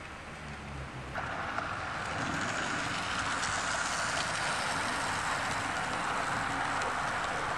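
Bachmann OO gauge model train running on DC-powered track, its wheels and motor making a steady rattling hiss on the rails that grows louder about a second in as it nears.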